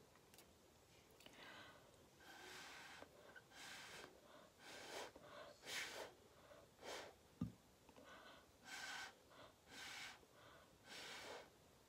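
Faint, short puffs of breath blown through a straw onto wet acrylic paint to push it into shapes, about ten in a row, each under a second. A single brief knock a little past the middle is the loudest moment.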